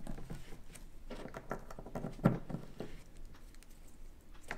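Small clicks and taps of insulated spade connectors on a jumper wire being pushed onto the metal terminals of two oval run capacitors, with one louder tap about two seconds in.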